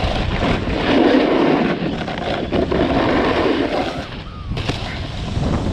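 Snowboard sliding and scraping over packed snow, with wind rumbling on the microphone. The scraping eases briefly about four seconds in, then picks up again.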